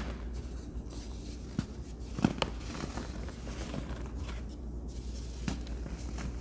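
Hands crushing and crumbling chunks of pressed powder: soft, irregular crunches and crackles with powder rustling between them, the loudest crunch a little after two seconds in, over a low steady hum.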